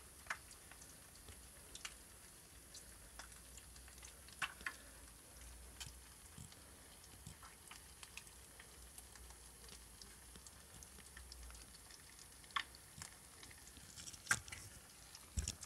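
Faint scattered crackles and pops, one every second or so, from eggs frying in butter in a copper pan over a small wood fire. A couple of louder knocks come near the end.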